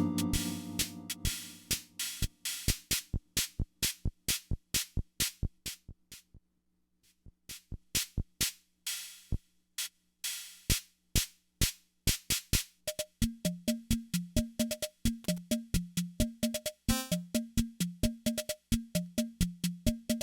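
Yamaha PS-20 keyboard's built-in drum machine playing a steady rhythm pattern. A held chord dies away at the start, and the beat stops briefly about six seconds in. From about thirteen seconds a low bass line plays along with the beat.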